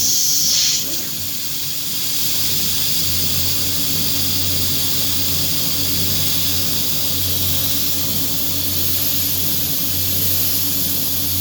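JCut 6090C CNC router with its 5.5 kW ATC spindle running, a steady hiss over a low hum; a loud high-pitched part of the sound drops away about a second in.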